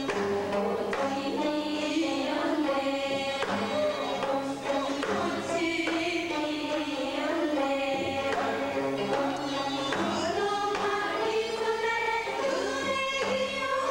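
Gayageum byeongchang: a group of women singing a Korean folk song in unison while plucking gayageum, the Korean twelve-string zither, with sliding, bending vocal and string tones, accompanied by janggu hourglass-drum strokes.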